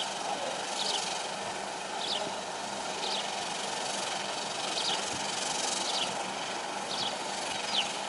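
House sparrow chirping: short, high, slightly falling cheeps about once a second, over a steady background hiss.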